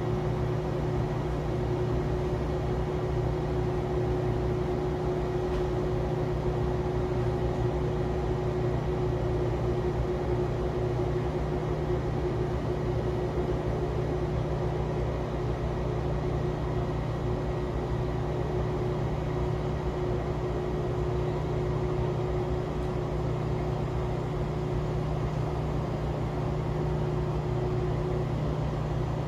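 Steady low mechanical hum, with a faint constant higher tone riding on it.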